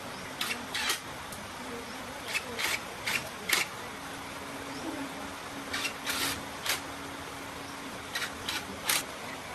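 Short scraping strokes of hand work on metal parts, about a dozen, coming in quick clusters of two or three, over a faint steady hum.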